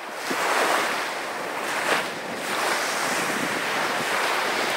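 Ocean surf: waves washing and breaking, fading in at the start and then swelling and easing in surges every second or so.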